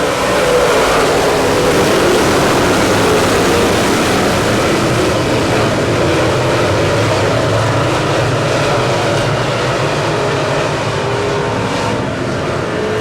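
Dirt late model race car engines running on the track: a loud, steady drone whose engine pitch rises and falls.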